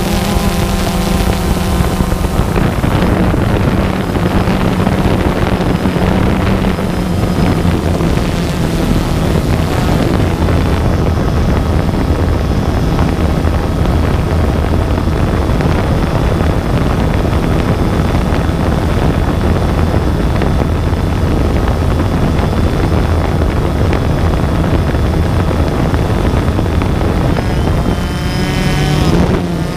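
Multirotor drone's electric motors and propellers running steadily, heard from a camera carried on the drone, with wind buffeting the microphone. Near the end the motor pitch swoops up and down.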